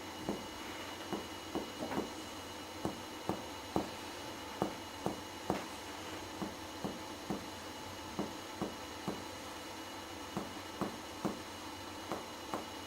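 Finger-on-finger percussion of a person's chest: a steady series of short, hollow taps, about two a second, as a middle finger strikes a pleximeter finger pressed to the chest wall, alternating between the left and right sides in comparative lung percussion. The taps give the clear lung sound of healthy lungs.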